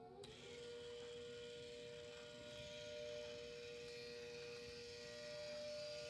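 Recorded ACA Hurricane 130 tornado siren at full speed: a steady two-tone chord at a fixed pitch, swelling gently in loudness. The sound changes abruptly about a quarter second in.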